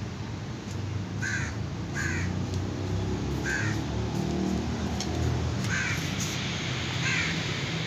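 Crows cawing: about five short calls, spaced irregularly, over a low steady hum.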